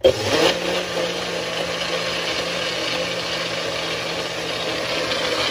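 Personal bullet-style blender motor switching on abruptly and running at a steady speed, pureeing squash soup.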